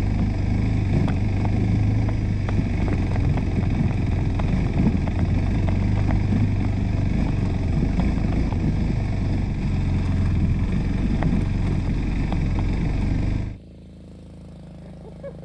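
Motorcycle on the move: a steady engine drone with rough road noise. It cuts off suddenly near the end, leaving a much quieter low hum.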